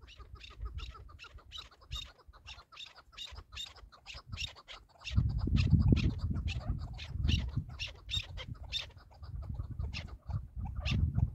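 Chukar partridge calling: a rapid run of short clucking notes, several a second. A low rumble joins in about halfway through.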